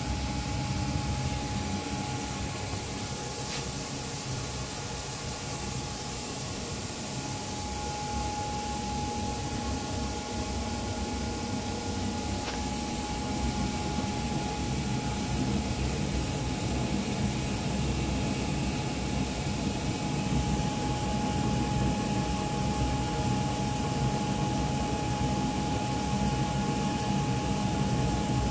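Radonett A1UV radon aerator running: a steady machine hum and hiss with a steady high whine, growing slightly louder partway through.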